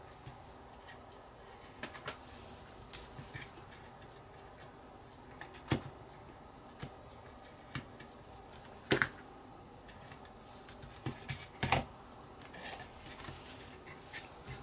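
Scattered small clicks and taps of metal tweezers and fingers against a hollow plastic model body as paint masking is picked off it, with a few louder knocks about six, nine and twelve seconds in.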